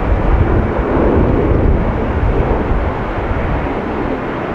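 Airbus A330 jet airliner climbing out just after takeoff: the steady low rumble and rushing noise of its two jet engines at climb power.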